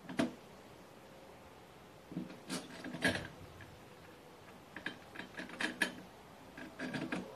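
Clicks, knocks and light rattles of new lawn mower parts being handled and fitted together by hand, in short clusters with pauses between.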